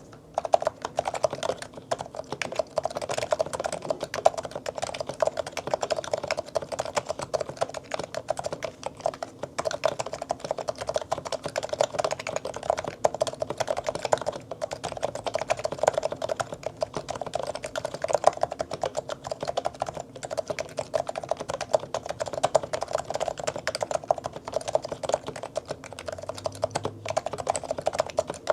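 Continuous fast typing on a Realforce RC1 Topre (electro-capacitive) keyboard fitted with Metakeebs 55 g domes, OEM silencing rings and lubed stabilizers: dense, muted key strokes with a low-pitched thock, starting just after the start.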